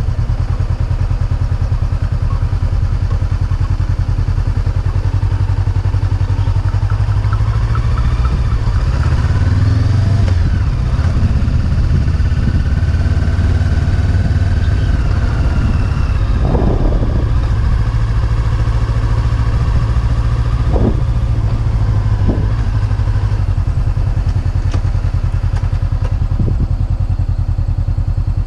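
Honda motorcycle engine running steadily at low road speed, heard from the rider's seat. A few brief knocks come over the second half.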